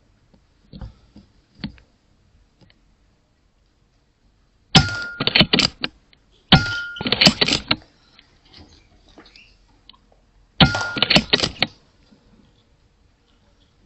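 A .22 air rifle, most likely being fired and re-cocked, heard as three loud bursts of sharp clicks and metallic clatter. Each burst lasts about a second and opens with a brief ringing tone. The first two come close together near the middle, and the third follows about four seconds later.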